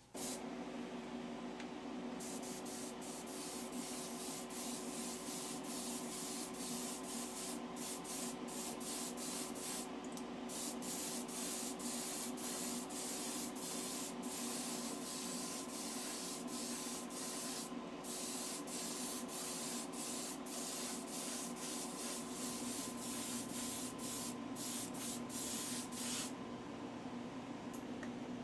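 Airbrush spraying olive-tinted 2K urethane clear coat in many short hissing bursts as the trigger is worked. The hiss starts about two seconds in and stops a couple of seconds before the end, over a steady motor hum.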